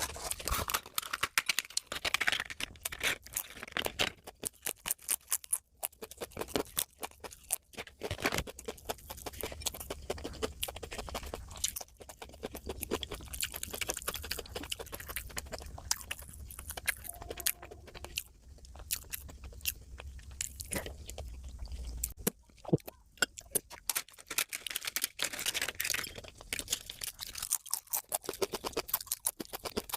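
Close-miked chewing and mouth sounds of a person eating, with many quick, irregular wet clicks and occasional crunches. A faint low hum underneath stops about two-thirds of the way through.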